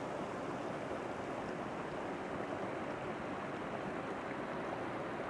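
River water rushing over boulders and small cascades, a steady, even rush.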